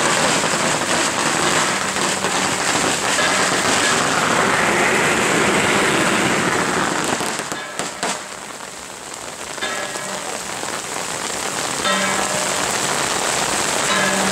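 Heavy rain falling, a dense steady hiss, dipping in level for a second or two about eight seconds in. A held low tone comes in near the end.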